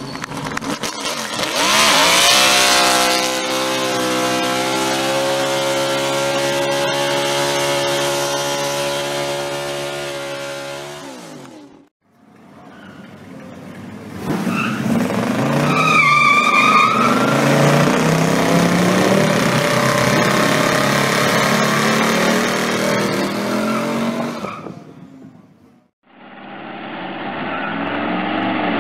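Three car burnouts one after another, each cut off sharply. First a stock car's engine revs up and is held at steady high revs, the tyres spinning; then a Plymouth Superbird's engine runs hard with the tyres spinning and a short tyre squeal about sixteen seconds in; then a Chevelle's engine revs up, rising in pitch, near the end.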